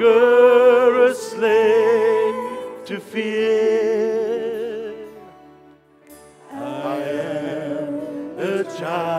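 Live worship band playing a slow song, a vocalist singing long held notes with vibrato over a low bass line. The singing breaks off briefly a little past the middle, then starts again.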